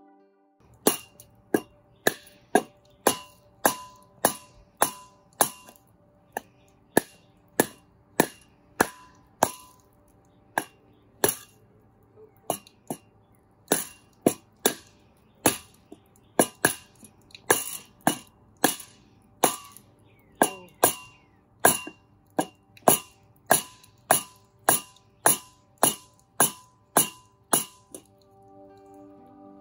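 A mallet knocking on a wooden block set on top of metal garden edging, driving the edging down into the soil. It makes a long run of sharp knocks, about three every two seconds, each with a brief metallic ring from the edging.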